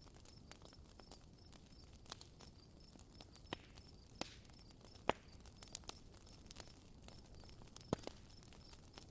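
Campfire crackling: a low hiss broken by scattered sharp pops, the loudest about halfway through. A faint high chirp repeats steadily several times a second behind it.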